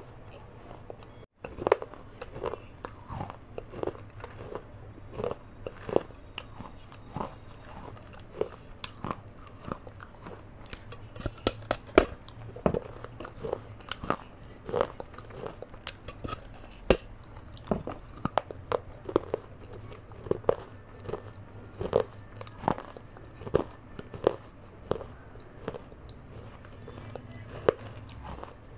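Terracotta clay pot (matka) being bitten and chewed close to a clip-on microphone. Sharp, crisp crunches come irregularly, about one or two a second, as pieces of the fired clay break between the teeth.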